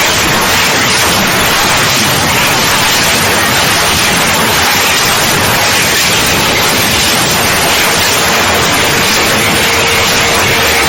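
Loud, steady static-like hiss, even and unbroken, with a faint steady tone joining in near the end.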